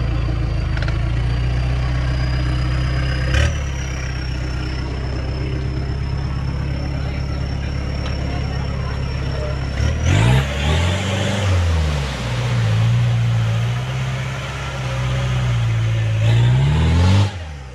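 Off-road SUV engine running steadily at low revs, then revved up and down several times from about ten seconds in, working through deep mud.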